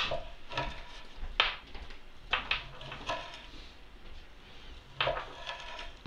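Chef's knife slicing through dry-salted pork fat (salo) and knocking on an end-grain wooden cutting board: several separate short cuts and taps with pauses between them.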